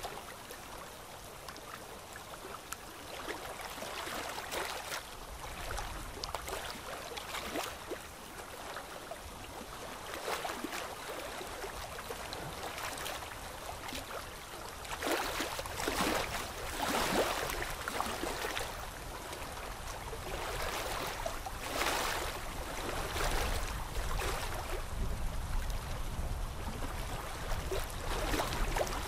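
Rushing water, rising and falling in uneven swells.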